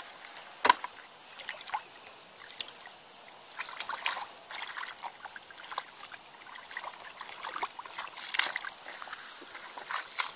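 Hands groping and splashing in shallow muddy ditch water: a run of irregular short splashes and squelches, the sharpest just under a second in.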